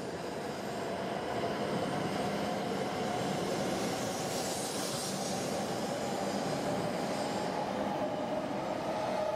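Shinkansen bullet train running past: a steady rush of wheel and air noise with a high whine held through it. The noise builds over the first second, and a faint rising tone enters near the end.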